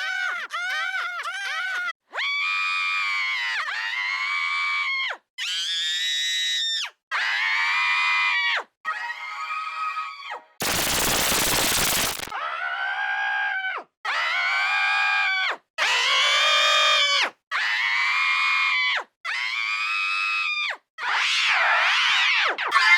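A cartoon character's scream, replayed about a dozen times in a row, each time pitch-shifted or run through a different digital voice effect, about a second and a half each with short gaps. The first version stutters as quick repeated cries. One near the middle is a harsh burst of noise, and the last one wobbles up and down in pitch.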